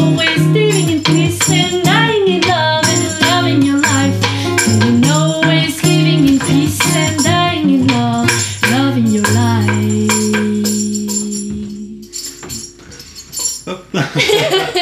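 A song with singing and strummed guitar, accompanied by fast rhythmic clicking hits of devil sticks striking each other. The music ends on a long held chord that fades out between ten and twelve seconds in, and a short burst of sharp stick hits comes near the end.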